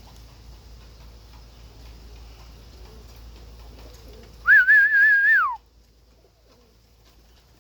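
A person whistles once, loud and about a second long: the tone rises, warbles several times a second, then glides down. A low wind rumble on the microphone runs beneath it beforehand.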